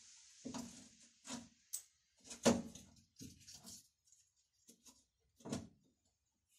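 Steel suspension parts being handled and fitted: a series of short, separate knocks and clunks, the loudest about two and a half seconds in.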